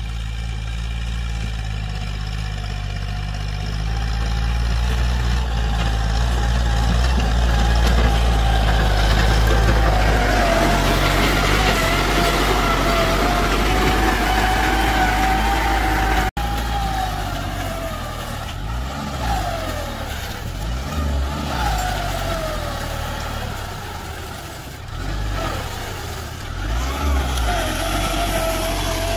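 Farm tractor's diesel engine running under load while pulling a disc plough through dry soil, steady at first, then rising and falling in pitch in the second half. A brief sharp dropout about sixteen seconds in.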